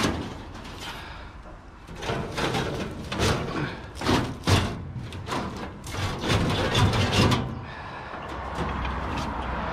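Scrap and hard rubbish being handled and dropped onto a load: a quick run of knocks, clatters and thuds about two seconds in. It settles into a steady low hum near the end.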